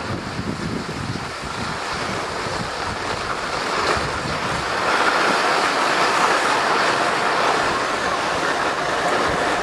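Steady hissing rush of skis sliding over packed snow, with wind buffeting the microphone, growing louder about halfway through.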